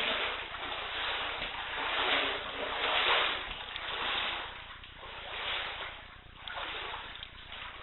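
Floodwater sloshing and splashing in repeated surges about a second apart, as someone wades through knee-deep water inside a flooded house.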